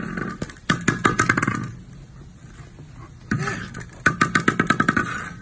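Young tiger growling in two rough, pulsing growls about a second long, one near the start and one about four seconds in.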